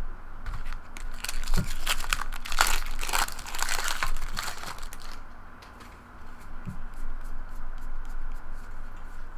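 Trading cards and a foil pack wrapper being handled and flipped through, crinkling and crackling for a few seconds, then lighter ticks of cards sliding.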